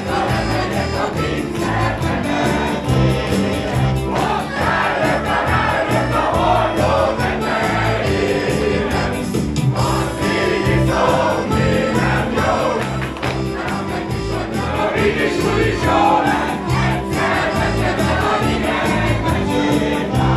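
Live band with electric guitar and keyboard playing Hungarian folk dance music to a steady beat, with a group of voices singing along.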